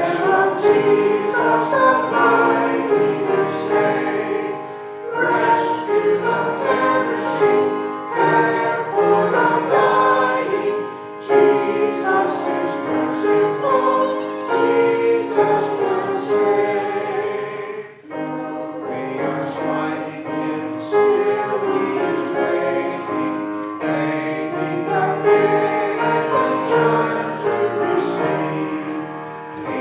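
Church choir singing a hymn, many voices together in harmony, with a brief pause between phrases about two-thirds of the way through.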